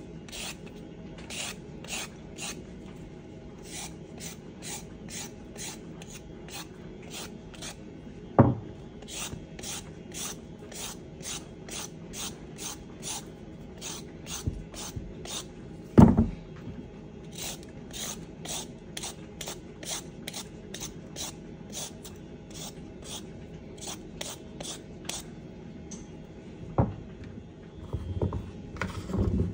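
Vegetable peeler scraping down a raw carrot in repeated strokes, about two a second, with short pauses and twice a louder knock. Near the end a knife cuts carrot on a wooden cutting board, giving a few knocks.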